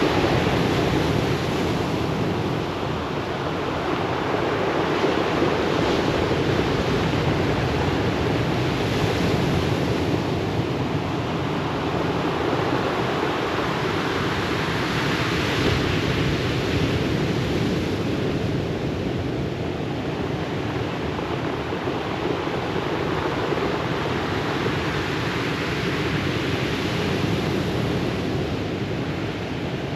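Ocean surf breaking on a pebble beach: a steady wash of waves that swells and eases every few seconds as sets come in.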